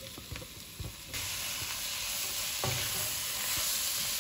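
Tomato, onion and spice masala frying in a nonstick pan while it is stirred with a spatula. After a few light clicks, a steady sizzle starts suddenly about a second in and holds.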